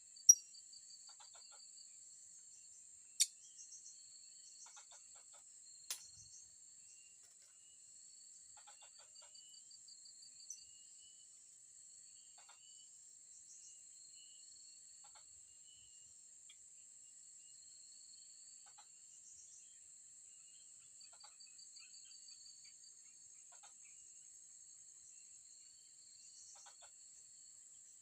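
Steady high-pitched drone of insects with a pulsing trill beneath it, over scattered faint bird chirps. A few sharp clicks break through, the loudest just after the start.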